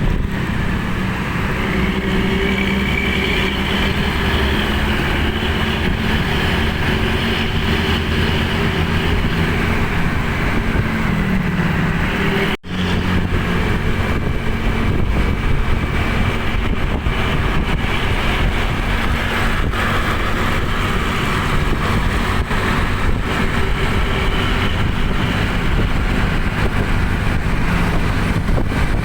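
Tour bus diesel engine running with a deep, steady snoring rumble, broken by a brief dropout about twelve and a half seconds in.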